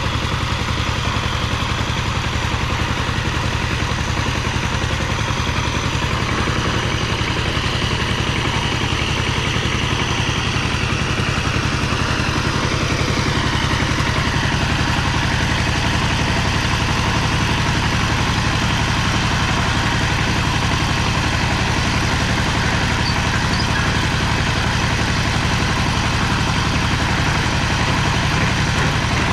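Two-wheel power tiller's single-cylinder diesel engine running steadily as it ploughs a flooded rice paddy.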